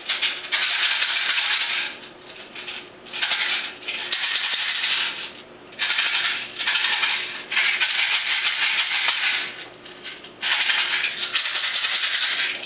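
Plastic BBs rattling inside a spring airsoft M8 rifle's magazine as it is shaken hard in bouts of one to two seconds, to get the BBs to feed.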